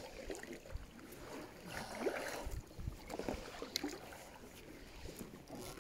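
Faint water sounds around a kayak on a river: soft lapping and small splashes, with a few light clicks.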